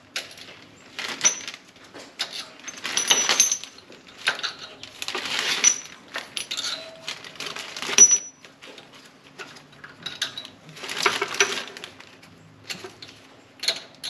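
Metal clinks and scrapes of a socket wrench on a long extension working the exhaust camshaft bearing-cap nuts of a BMW M52/M54 inline-six cylinder head, in about half a dozen short bursts, with one sharp clink about eight seconds in.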